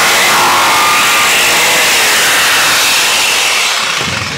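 Electric hand planer running and cutting along the edge of a plywood panel, shaving a taper so the board butts up to its neighbour; the steady, loud cutting noise dies away near the end as the planer comes off the wood and runs down.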